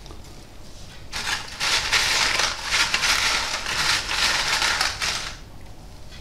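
Freshly fried homemade kettle chips being tossed by hand in a bowl lined with kitchen paper, a dry crackling rustle of crisps and paper. It starts about a second in and stops a little after five seconds.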